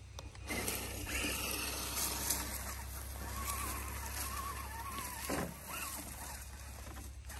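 Laegendary Grando 1:10 RC crawler's brushed electric motor and drivetrain working as it crawls over logs, a steady mechanical noise with a wavering whine in the middle. A brief knock about five seconds in.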